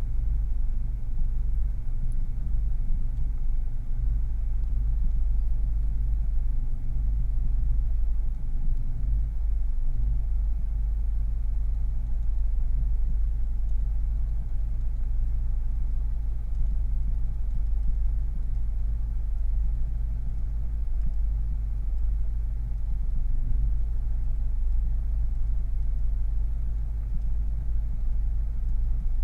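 Vauxhall Carlton engine running steadily at idle, a low, even sound with no revving.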